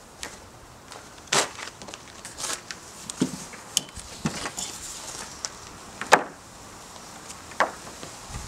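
Nylon cam-buckle tie-down straps being handled and thrown over a paddle board on a car roof rack: scattered rustles and a handful of sharp clicks and knocks from the buckles, the loudest about six seconds in.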